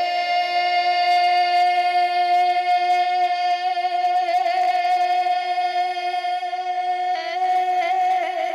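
A man singing a naat, holding one long high note with a slight waver in pitch that shifts a little near the end.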